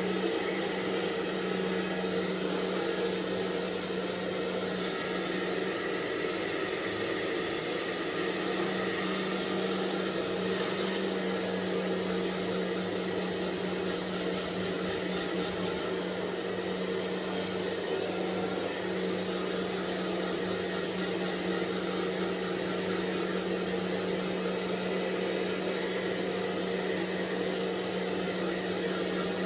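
Handheld hair dryer running steadily: a rush of blown air over a constant low motor hum.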